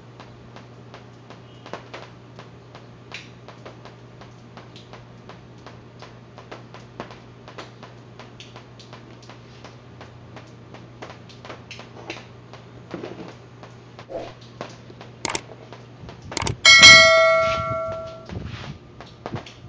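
A mechanical wind-up timer ticking over a steady low hum. About three-quarters of the way through come a couple of sharp knocks, then the timer's bell rings once, a bright ding that dies away over about a second and a half as it runs out.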